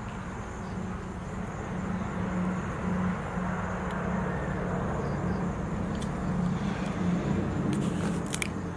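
A steady low engine drone, growing a little louder after the first couple of seconds, with a few faint ticks near the end.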